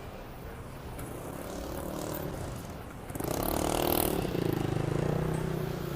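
Background street traffic, then about three seconds in a motor vehicle's engine comes up loud and close, a pulsing engine note that settles into a steady drone.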